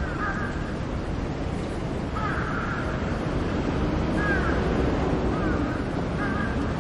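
Crows cawing, a handful of short calls spaced a second or two apart, over steady outdoor background noise.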